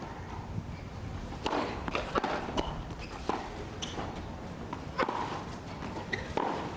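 Tennis rally on a hard court: sharp pops of racquets striking the ball and the ball bouncing, coming about every half second to second and a half.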